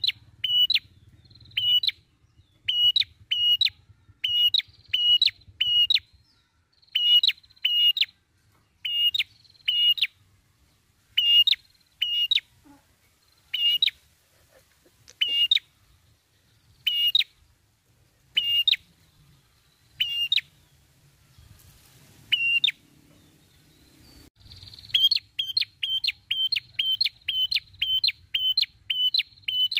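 Ashy tailorbird (prenjak kepala merah) calling: sharp, high notes repeated over and over, in quick runs at first, then spaced out to about one note every second and a half, then a fast run of about four notes a second near the end.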